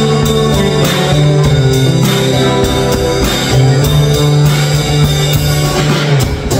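A live trio of two acoustic guitars and a Yamaha drum kit played with sticks, strumming and picking over a steady beat of drum and cymbal hits.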